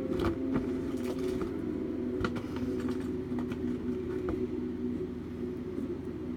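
A steady low hum with several held pitches, over which come a few light clicks of small plastic toys and capsules being handled.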